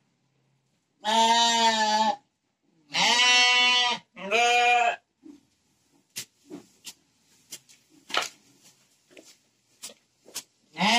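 Sheep bleating three times, each call about a second long, the last two close together. After that come scattered short clicks and rustles.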